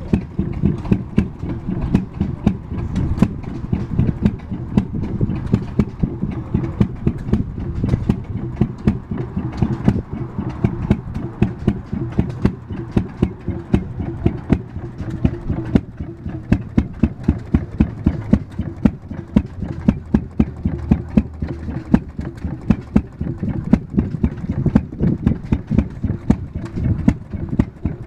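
Antique Detroit Engine Works two-cycle, fuel-injected stationary engine running and belted to a small assay jaw rock crusher. The engine gives a rapid run of sharp beats, some louder than others.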